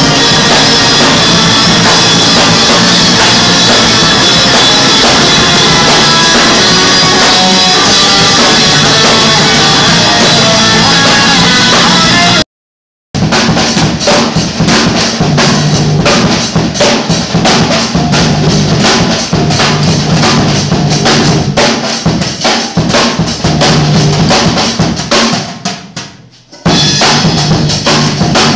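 Live rock band played very loud: electric guitars and bass over a hard-hit drum kit. About twelve seconds in the sound cuts out completely for a moment, then comes back with the drums striking hard and steadily; near the end it dips briefly before returning at full level.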